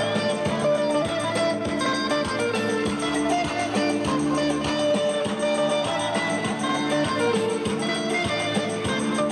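Instrumental dance music: a plucked-string melody over a steady beat, with no singing.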